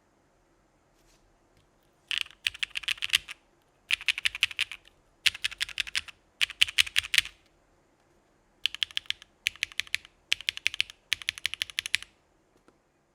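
Typing on a Geonworks Frog mechanical keyboard with lubed Gateron Pure Berry switches in an aluminum plate and CRP Desko keycaps, in quick runs of keystrokes. The typing starts about two seconds in and comes in several bursts, with a short pause in the middle. It stops about a second before the end.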